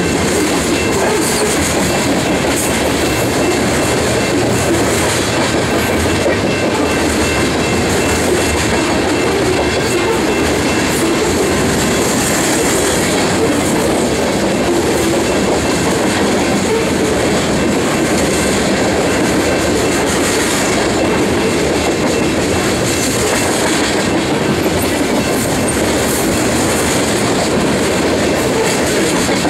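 A heavy grain train's loaded covered hopper cars rolling past at close range: steel wheels running over the rails with a steady, loud clickety-clack and rumble. A faint, steady high-pitched tone rides over it and fades out about three-quarters of the way through.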